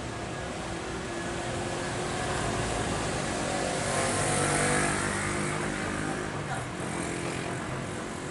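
Jet airliner engines passing by: a noisy engine roar with a high hiss that swells to its loudest about four to five seconds in, then eases off.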